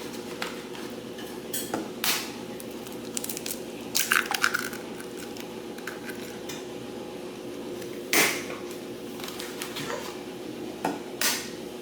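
Cooking utensils knocking and scraping against pans and dishes while scrambled eggs are cooked, in scattered short clatters, the loudest about four and eight seconds in, over a steady hum.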